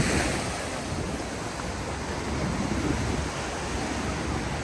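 Ocean surf washing onto a sandy beach, a steady rushing, with wind rumbling on the microphone.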